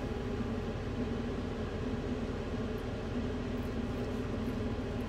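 Steady machine hum with a constant hiss, unchanging throughout.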